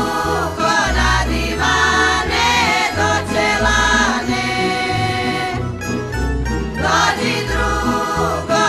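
Women's folk group singing a Croatian folk song together in several voices over a low bass line; the voices break off briefly about six seconds in while the low part carries on.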